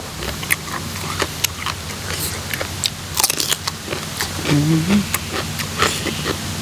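A person chewing som tam (spicy papaya salad) close to the microphone: a string of crisp crunches and mouth clicks, with a short hummed 'mm' about halfway through.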